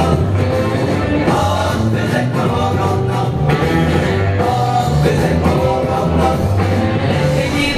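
Pop-rock song with a singing voice over a steady bass line.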